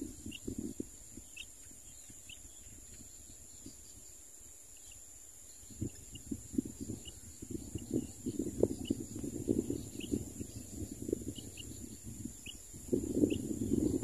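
Short, high bird chirps at irregular intervals over a steady high whine. From about six seconds in, a low crackling rustle joins them and grows louder toward the end.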